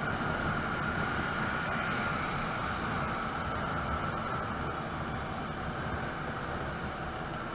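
Motor scooter riding along at steady speed: engine running with a steady whine, under wind rushing over the microphone.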